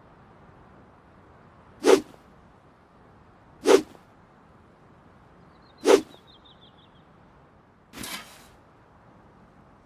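Handmade longsword swung through the air: three sharp swishes about two seconds apart, then a softer, longer swish near the end.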